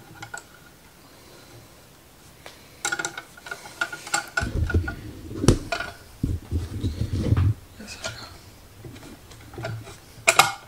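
Metal tools and transmission parts clinking and knocking as they are handled on the dual-clutch gearbox, with a brief metallic ring and a patch of low handling thumps in the middle.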